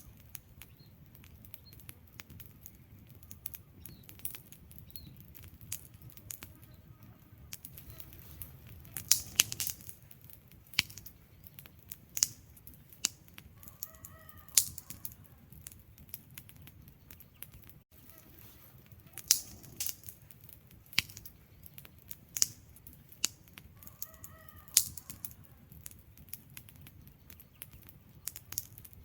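Wood fire burning, with sharp irregular crackles and pops over a low steady rumble of flames.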